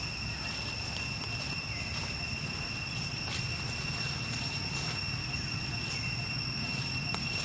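Outdoor forest ambience: a steady high-pitched whine held at two pitches over a constant low rumble, with a few faint clicks.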